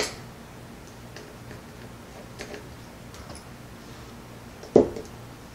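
Faint, scattered metallic ticks of a precision screwdriver turning the tiny screws out of a Bass Pro Shops Catmaxx baitcasting reel's line guide assembly, with one sharper knock near the end.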